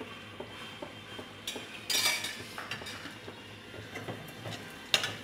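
Slotted steel spatula scraping and clinking against a metal kadai while stirring a little oil, with a louder scrape about two seconds in and a sharp clink near the end.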